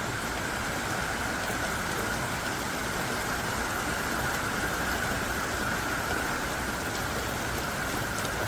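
Heavy rain falling in a steady, dense downpour.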